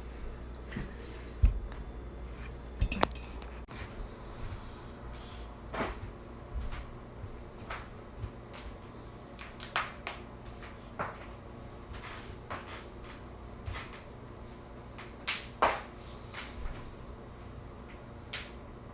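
Human joints cracking: a dozen or so sharp pops at irregular intervals, the loudest about a second and a half and three seconds in, with another close pair near the end.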